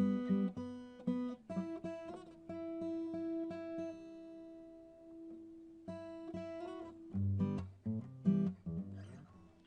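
Solo acoustic guitar playing: plucked and strummed chords, one chord left ringing for a few seconds, then a few lower notes before the sound dies away near the end.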